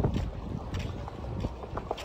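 Wind rumbling against the microphone outdoors, uneven and gusty, with a few short knocks mixed in.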